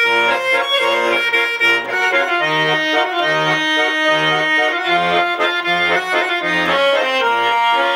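Russian garmon (button accordion) playing an instrumental interlude between the sung verses of a song, a held-note melody over bass notes that fall into an even beat from about two and a half seconds in.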